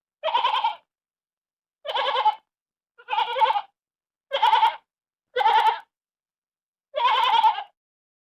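A sheep bleating six times, each bleat short with a wavering pitch, spaced about a second apart.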